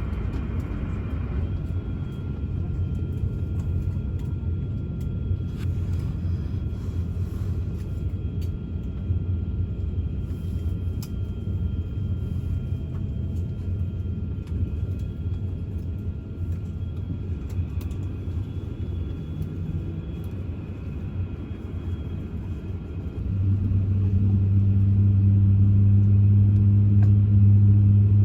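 Rumble of an Airbus A350-1000's engines and airframe heard inside the passenger cabin as the aircraft moves on the ground. About 23 seconds in it becomes much louder, a steady deep drone.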